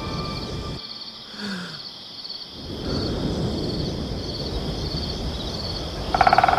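Crickets chirping about twice a second over a low night-time background. A short, loud, rapidly pulsing sound comes near the end.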